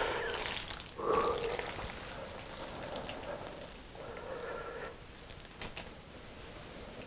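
Saucy instant noodles (Carbonara Buldak) being stirred and lifted with wooden chopsticks in a bowl: soft, wet, sticky squishing and dripping. A few light clicks come near the end.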